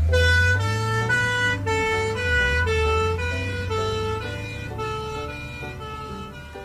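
Ambulance two-tone siren alternating between a high and a low note about every half second over a low engine rumble, slowly fading.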